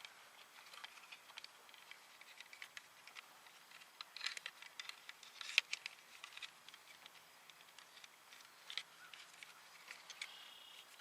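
Faint scattered clicks and rustles of plastic parts and wires being handled and pushed together while fitting a fish finder mount, with a small cluster of sharper clicks about four to six seconds in.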